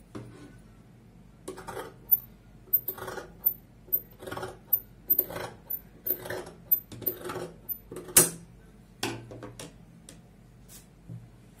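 Tailor's shears cutting through fabric: a run of snips about one every half second, with faint metallic clicks from the blades. The loudest snip comes about eight seconds in.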